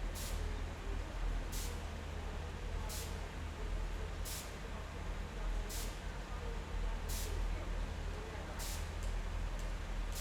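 Train station ambience: a steady low hum under faint distant voices, with a short hiss of air repeating evenly about every second and a half.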